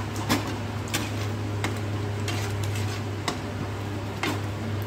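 Steel ladle stirring a thick masala gravy in a kadai, clinking and scraping against the pan about once a second, over a steady low hum.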